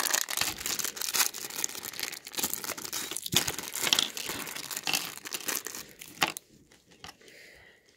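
Lego minifigure blind bag and its inner clear plastic bag crinkling and tearing as they are opened by hand and the figure's pieces are emptied onto the table. The crinkling stops about six seconds in, leaving only a few faint ticks.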